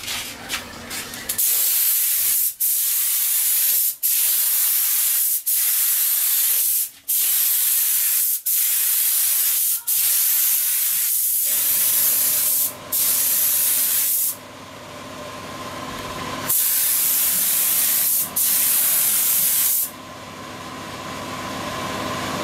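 Compressed-air spray gun with a suction-feed cup spraying acrylic paint onto car body panels: loud hissing runs of about one and a half seconds each, cut off briefly each time the trigger is let go between passes. From about halfway a steady hum sits under the spraying, and the pauses grow longer near the end.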